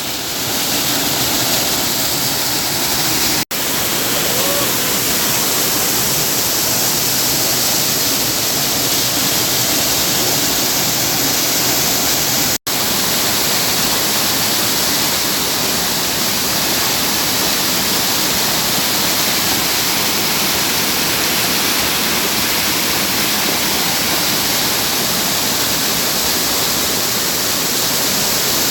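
Waterfall roaring loudly and steadily. The rush is loud enough to drown out voices.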